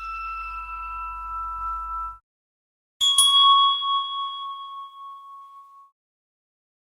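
Two metallic bell-like dings from a sound effect pack, each struck once and left to ring out and fade: the first is already ringing and stops about two seconds in, the second strikes about three seconds in and fades away over nearly three seconds.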